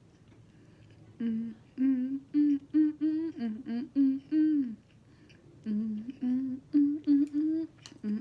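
A woman humming a tune with her mouth closed, in two phrases of short sung notes with a pause between them.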